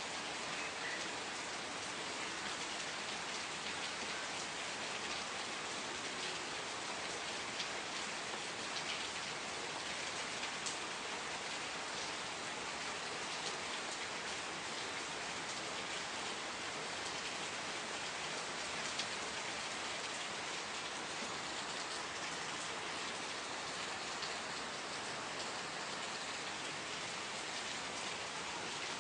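Steady rain falling, an even hiss with faint individual drop ticks throughout.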